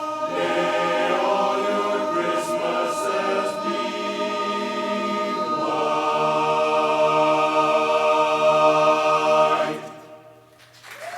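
Barbershop chorus singing a cappella in close harmony, ending on a long held chord that cuts off about ten seconds in.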